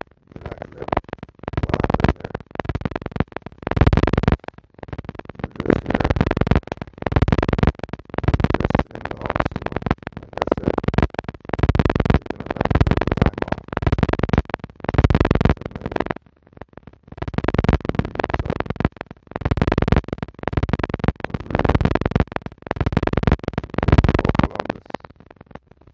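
Music with a pulsing beat, swelling and dropping about once a second.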